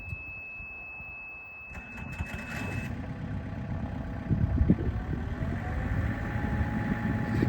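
Komatsu PC54R mini excavator's diesel engine cranking and starting, while a steady high-pitched warning tone sounds and cuts off as the engine catches. The engine then runs steadily, with a few knocks soon after it starts and a slight rise in pitch a little later.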